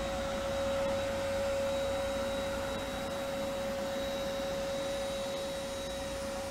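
Shop vac running steadily with a constant whine, drawing the air out from behind a new vinyl pool liner to pull it tight against the pool wall.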